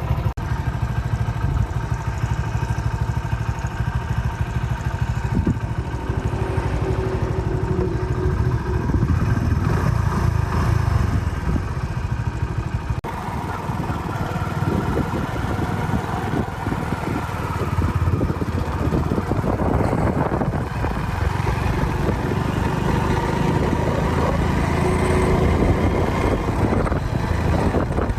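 Motorcycle engine running as the bike is ridden along a road, a steady low rumble with an abrupt break about 13 seconds in.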